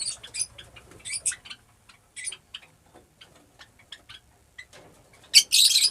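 Fischer's lovebirds chirping: short, high, scattered calls amid light clicking, with a louder burst of chatter near the end.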